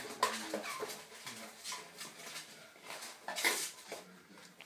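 Chihuahua puppies scuffling in a cardboard shoebox, their claws scratching and bumping the cardboard, with a few short, high squeaking yelps. The loudest burst comes about three and a half seconds in.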